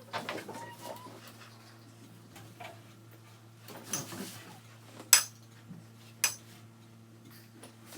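Cutlery clinking against plates and dishes, with two sharp clinks a little past the middle.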